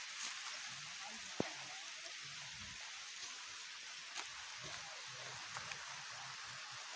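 Light rain falling, a soft even hiss with scattered drop ticks and one sharper click about a second and a half in.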